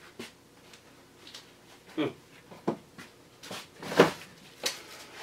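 A few short knocks and clatters of small items being handled and rummaged in a plastic storage tote, the loudest about four seconds in.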